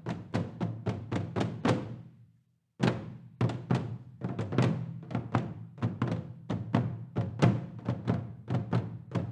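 Korean traditional drum ensemble playing a fast, driving rhythm of several strikes a second, stopping dead for about half a second about two seconds in and then coming back in with heavy accented beats.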